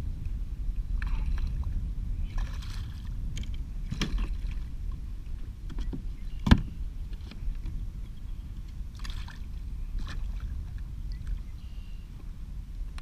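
Handling noises on a plastic sit-on-top kayak: scattered knocks and clicks, with one sharp knock about six and a half seconds in, over a steady low rumble of wind and water.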